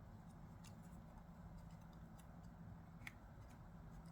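Near silence with a low steady hum and a few faint, light clicks, the clearest about three seconds in, from small 3D-printed plastic knife parts being handled and fitted together.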